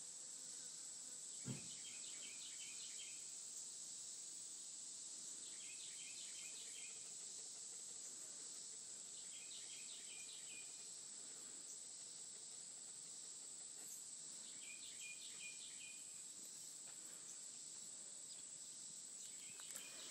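Faint insect-like drone holding one steady high pitch, with a short chirping phrase repeating about every four seconds. A single soft knock comes about a second and a half in.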